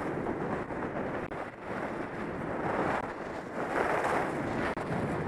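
Wind rushing over the microphone at skiing speed, mixed with the hiss of Head Kore skis carving on packed snow, swelling and easing with each turn.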